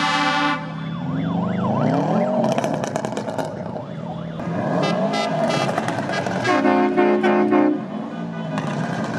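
Parade vehicles passing with a horn blast at the start, then a siren sliding up and down in pitch for a couple of seconds from the blue-lit car, and another long horn blast about seven seconds in.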